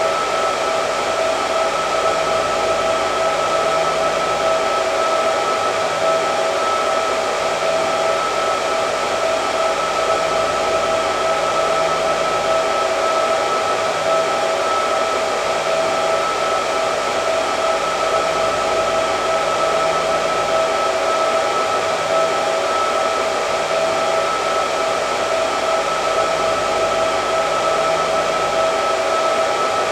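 Hair dryer running steadily: a constant rush of air with an unchanging whine from the motor.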